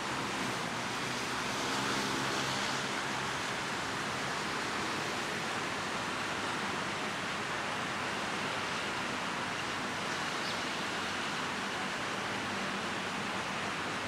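Steady outdoor background noise: an even, unbroken hiss with no distinct calls or knocks.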